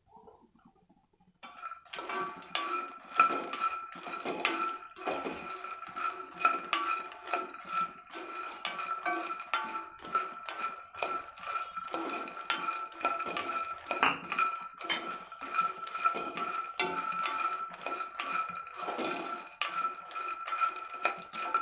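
Puffed lotus seeds (makhana) being stirred and tossed with a spatula in a non-stick pan while they dry-roast: a rapid, continuous run of scrapes and light rattles of the seeds against the pan, starting about a second and a half in.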